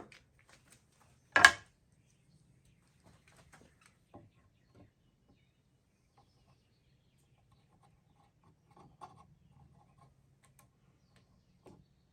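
Hand-tool handling: one loud, sharp knock about a second and a half in, then faint scattered clicks and taps.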